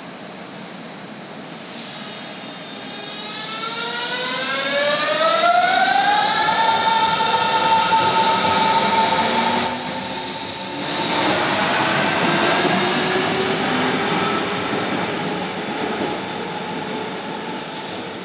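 Berlin S-Bahn electric train pulling out of an underground station. Its motors whine, rising in pitch over a few seconds and then holding steady, and a brief hiss comes about halfway through as the train runs off down the tunnel and fades.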